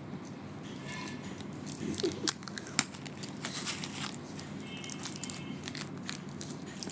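Packaging being handled and opened: crinkling and tearing, with a few sharp clicks about two to three seconds in and a stretch of scratchy rustling just after.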